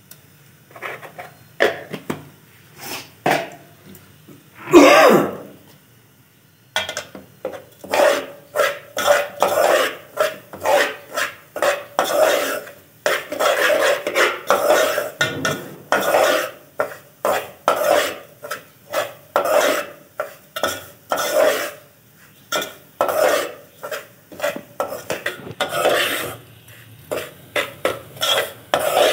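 Steel spoon scraping and stirring crumbly semolina halwa in an aluminium pot, in quick repeated strokes, about two a second. About five seconds in comes one loud cough-like sound from a person, the loudest thing heard.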